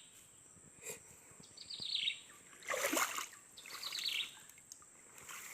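A bird calling: a short, high, falling trill repeated about every two seconds. A brief, louder rush of noise comes about three seconds in.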